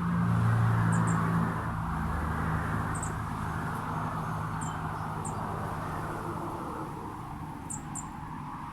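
Outdoor ambience. A vehicle's engine hum is loudest at the start and fades away over several seconds. Under it runs a steady high buzz, and brief high chirps sound every second or so.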